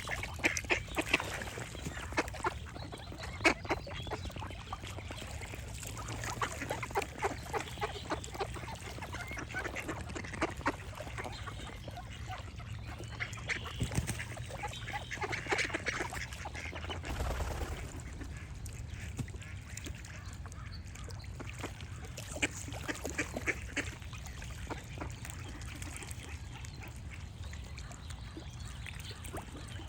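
Ducks quacking in quick runs of short calls, densest in the first half and thinning out later, over a low steady rumble.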